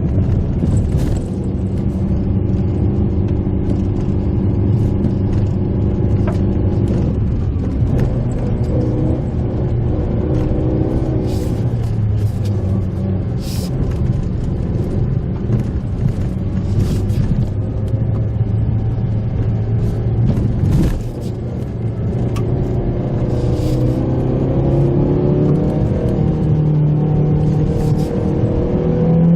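Mitsubishi Pajero Mini kei car engine pulling the car along a rough road, its note stepping down and rising again with gear changes and throttle, with occasional short knocks and clicks from the car going over the surface.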